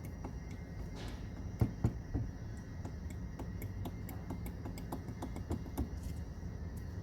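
Scattered light clicks and two sharper knocks just under two seconds in, over a steady low hum.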